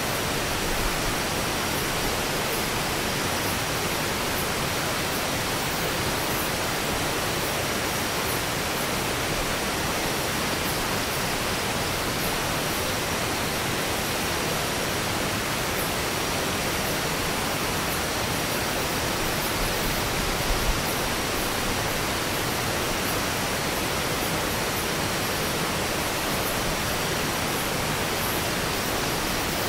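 Shallow river water rushing over rocks, a steady even noise with no pauses. A brief low bump about two-thirds of the way in.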